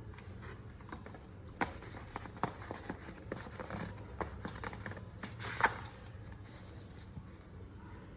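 Hands handling a mechanical keyboard: irregular clicks and clacks with light rustling, the loudest click about five and a half seconds in.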